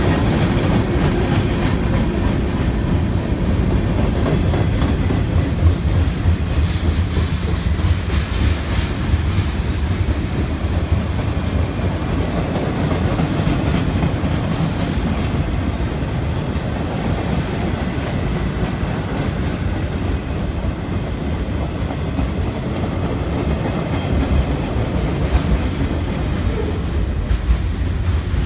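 Freight train cars of a manifest train rolling past: steady rolling noise of steel wheels on rail, with occasional clicks as wheels cross rail joints. The passing cars are covered hoppers and flatcars.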